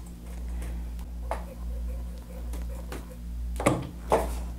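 A few small clicks and taps as a plastic bobbin is fitted onto the bobbin-winder spindle of a Singer 247 sewing machine and the thread is set. The two sharpest clicks come near the end, over a steady low hum.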